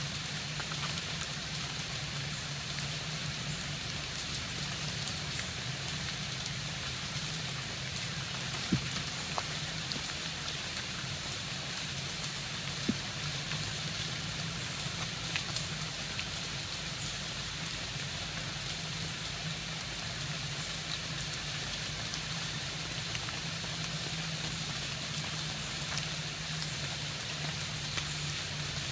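Steady rain falling, with a few sharp taps now and then.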